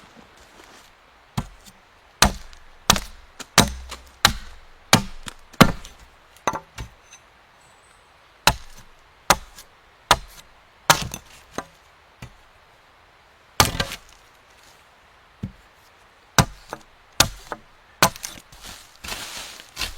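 Wood being chopped with an edged tool such as an axe or hatchet: sharp separate strokes in runs, a little faster than one a second, with short pauses between runs.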